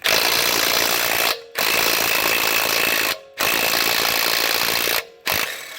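DeWalt DCF880 20 V cordless 1/2-inch impact wrench hammering in three bursts of about a second and a half each, then a short fourth burst near the end.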